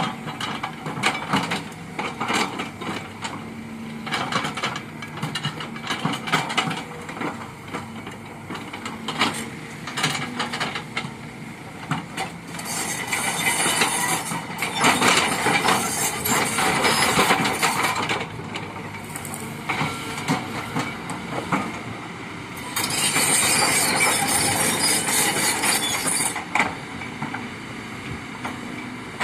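Kobelco excavator working: its diesel engine runs steadily under repeated knocks and clanks from the working gear. Two longer, louder stretches of harsh noise come about halfway through and again about two-thirds through.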